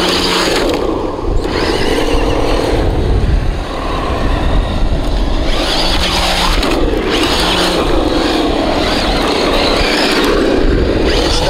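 Traxxas TRX-6 Mercedes 6x6 RC truck's electric motor whining, rising and falling in pitch with the throttle several times, over a rough rushing noise that swells and fades.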